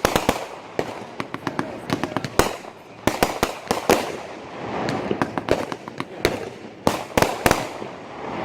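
Fireworks going off: a rapid string of sharp bangs and reports, coming in dense clusters with crackling between them, with a loud bang at the very end.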